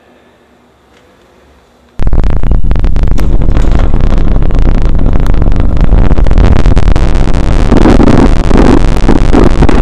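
Faint room tone, then about two seconds in a loud, harsh crackling noise like static or heavy distortion starts abruptly and carries on.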